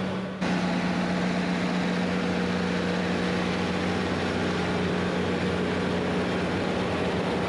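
Tractor engine running with a steady, unchanging drone.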